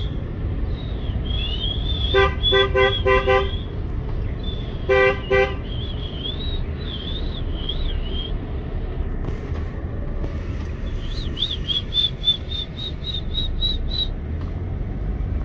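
Car horn honking at a flock of sheep and goats on the road: a quick run of short toots about two seconds in, then one longer toot about five seconds in, over the steady low rumble of the car moving. High warbling chirps run through the first half and come back as a rapid string of chirps near the end.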